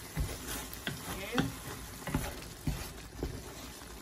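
Wooden spoon stirring meatballs in a boiling tomato sauce in a pan. The sauce bubbles throughout, and the spoon knocks against the pan about six times.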